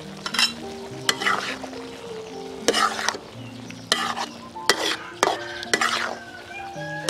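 Metal spatula stirring and scraping straw mushrooms, pork and green onions around a steel wok, a series of sharp scrapes about once a second over the sizzle of frying. Background music plays underneath.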